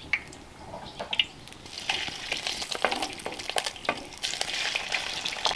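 Sliced beef steak going into hot lard in a clay cazuela, starting to sizzle and crackle about two seconds in. A wooden spatula clicks and scrapes as the meat is pushed off the plate.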